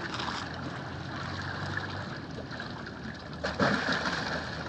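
Water lapping and sloshing against a moored boat's hull. About three and a half seconds in, a louder splash as a giant trevally strikes bait held at the surface.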